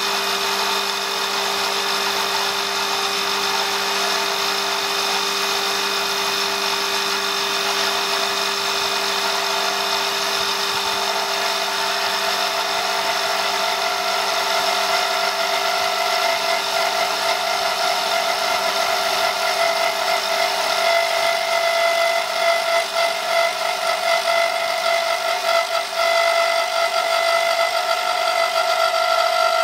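CNC wood lathe turning a wooden spindle: a steady machine whine with the hiss of the cutter shaving the spinning wood. A higher whine comes in about a third of the way through, and the cutting grows louder and more uneven from about halfway.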